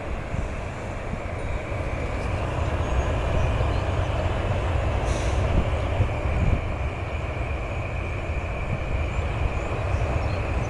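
Jet airliner taking off: a steady, deep engine rumble with a faint high whine, growing a little louder after about two seconds.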